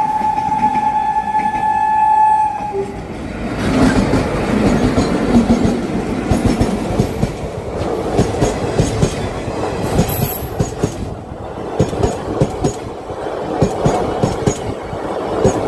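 Indian Railways WAP7 electric locomotive's horn sounding one steady tone that stops about two and a half seconds in, then the train running past with rumble and rapid clattering of wheels over rail joints.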